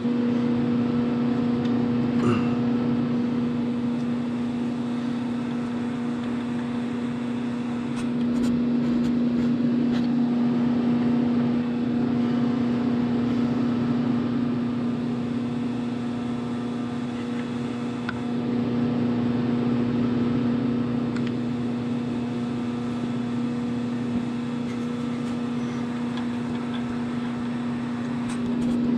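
Steady electrical hum of running shop machinery, one low pitch with a buzzing overtone, holding unchanged throughout, with a few faint clicks from tools being handled.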